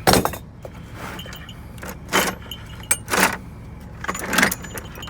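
Loose metal hand tools clanking and clinking as they are handled and dropped among each other, several sharp clanks with the loudest at the very start, over a steady low rumble.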